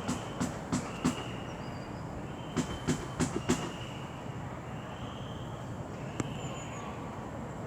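A Class 730 electric multiple unit running into the station. Its wheels click irregularly over the track during the first few seconds, then a steady rolling rumble goes on.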